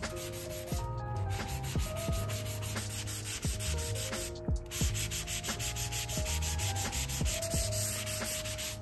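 A sanding sponge rubbing across a plywood panel by hand in quick, even back-and-forth strokes, several a second, over background music.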